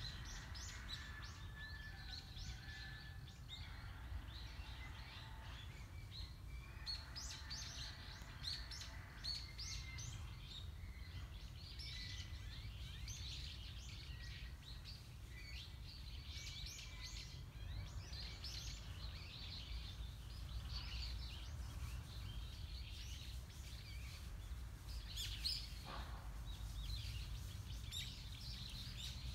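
Small birds chirping and twittering on and off, many short high calls, over a steady low background rumble. One brief, sharper sound stands out near the end.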